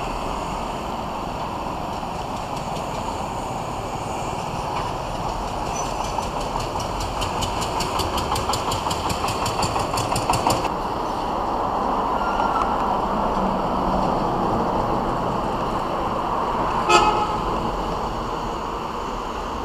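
Steady roadside traffic noise from passing motorbikes and vehicles. A rapid, even ticking runs for about four seconds in the middle and stops abruptly, and a single sharp click comes near the end.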